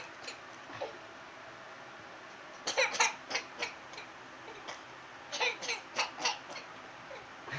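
A toddler giggling in quick bursts, in two bouts: one about three seconds in and another a couple of seconds later.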